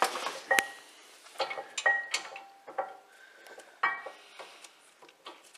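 Metal clinks and taps of tools and bolts against the brake caliper and its slider hardware, about half a dozen separate knocks, several with a short metallic ring.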